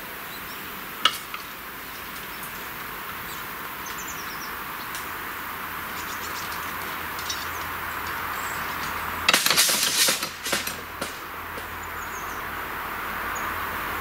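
Mechanical cable-pulled railway crossing barrier lowering: a sharp click about a second in, then a cluster of metallic clanks and rattles a little past halfway as the barrier arm with its hanging grille comes down onto its rest. Under it a steady hiss that slowly grows louder, with a few faint bird chirps.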